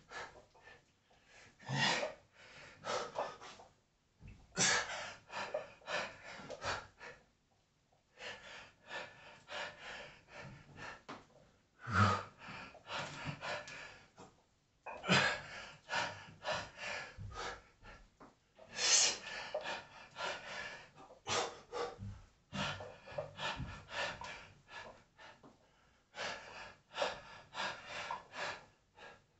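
A man's hard, forceful breathing while straining through heavy barbell reps: clusters of short, sharp puffs and hissing exhalations, one burst every few seconds.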